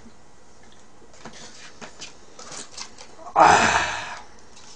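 Light clicks and taps of chopsticks working a piece of fried chicken. About three and a half seconds in, a loud noisy rush lasts under a second and fades.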